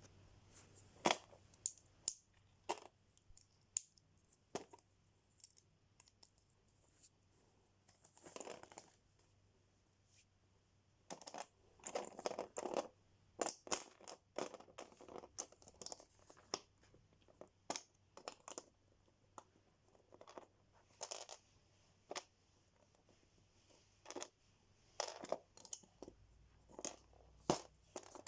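Handling of Lego pieces and their plastic bags: irregular small hard clicks and taps, with bursts of plastic crinkling and tearing.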